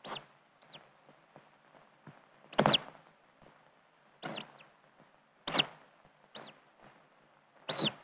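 Oystercatcher chick peeping from inside its cracked egg as it hatches: short high peeps that drop quickly in pitch, each with a sharp click, coming about once a second and loudest twice.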